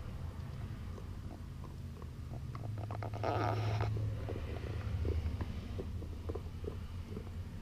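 A puppy gnawing on a chew toy, with small scattered clicks of teeth on the chew and a brief rustle about three seconds in, over a low steady rumble.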